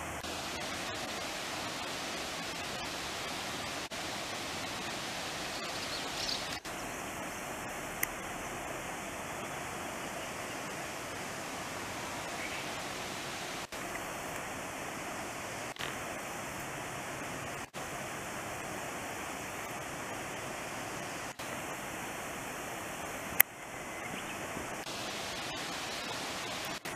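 Steady rushing outdoor background noise with no distinct events. It is broken by several brief dropouts where the shots change, and there is one sharp click near the end.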